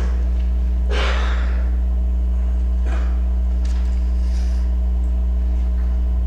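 Steady low electrical hum on the recording, with a few brief rustles or shuffles: one about a second in, then smaller ones around three and four seconds in.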